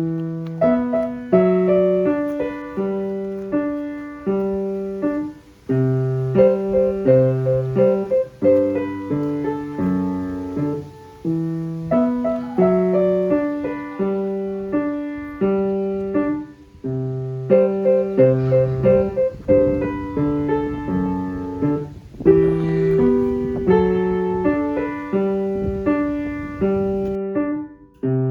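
Background music: a piano piece with a steady pattern of struck notes over a low bass line.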